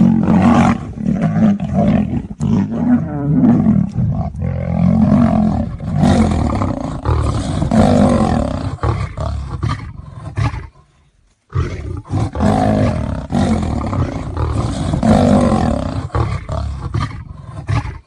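Big cats roaring during a fight: a near-continuous run of deep, rough roars that drops out for about a second around ten seconds in, then starts again.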